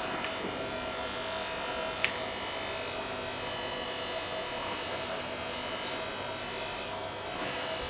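Steady buzzing hum with a few fixed pitches, with one sharp click about two seconds in.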